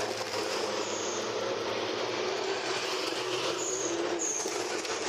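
Motorcycle engines passing at speed on the road, a dense engine noise whose pitch drifts slowly down.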